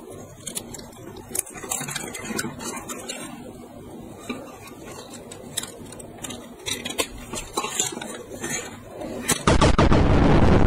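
Hard plastic toy parts clicking and snapping as pieces are fitted onto a plastic transforming robot toy. Near the end a sudden loud, steady rushing noise starts and drowns everything.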